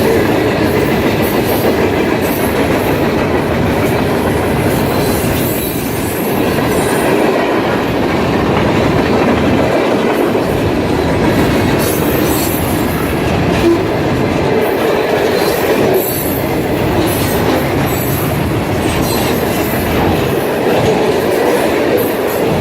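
Train rolling by on the rails, a loud, steady rumble of wheels and cars that runs without a break.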